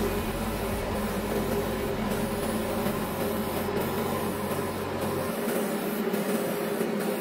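Airbrush spraying gloss clear varnish at about 25 psi: a steady hiss over the steady hum of a spray booth extractor fan. A low rumble underneath drops away about five seconds in.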